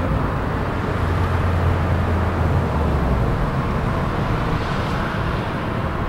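Steady low mechanical drone with a hiss over it, the low hum dropping a little in pitch about three seconds in.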